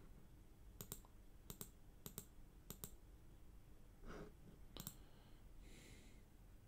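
Faint computer mouse clicks: five short clicks spread over a few seconds, each a quick double tick of press and release, as on-screen arrow buttons are clicked.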